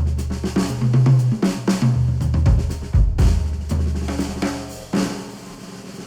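Drum-led pop music with kick, snare, hi-hat and cymbals over a bass line, played back through headphones and picked up by microphones on them. The beat thins out and fades over the last second or so.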